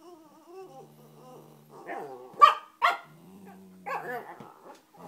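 A cockapoo and a shih-poo growling at each other over a chew bone, a low steady growl broken by two sharp barks about two and a half seconds in and a short snarl a second later.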